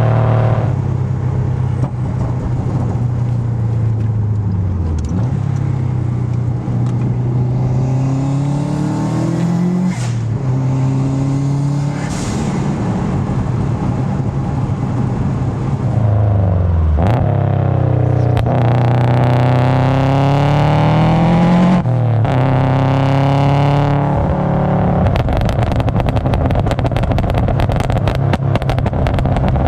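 Turbocharged Subaru WRX flat-four engine pulling hard through the gears: the pitch climbs for several seconds, then drops sharply at each upshift, about four times. A few sharp cracks come at the shifts, and the last few seconds are full of rapid crackling.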